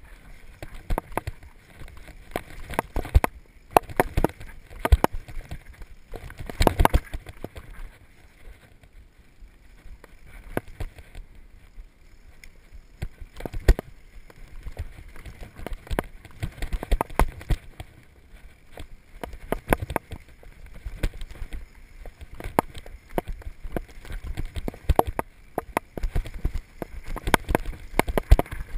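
Mountain bike descending a dirt forest trail at speed: tyres running over loose dirt and roots, with a steady low rumble and frequent irregular knocks and rattles as the bike hits bumps, in louder clusters every few seconds.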